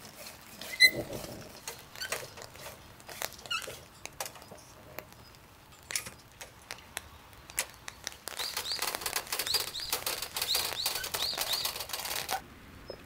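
Clicks, knocks and light rattles of a Fiamma roll-out van awning and its metal support legs being set up, with one ringing metallic click about a second in. From about eight seconds in comes a dense run of rapid ticking with small repeated squeaks, which stops abruptly near the end.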